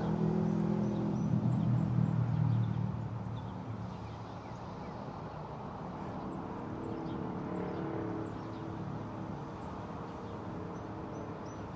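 A vehicle engine's low steady hum, strongest for the first few seconds, then fading and swelling a little again.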